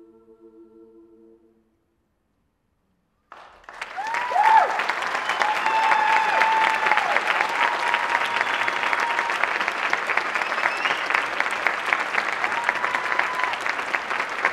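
A women's a cappella choir's final held chord dies away about a second and a half in. After a short silence the audience breaks into loud, sustained applause, with a few cheering voices rising over it.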